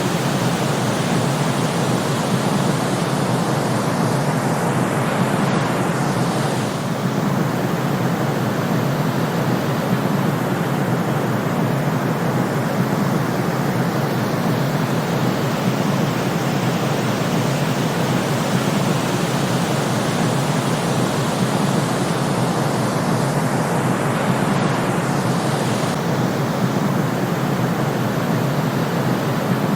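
Steady white noise for sleep, a constant hiss and rush with no breaks. Its tone shifts slightly twice as the sound loops.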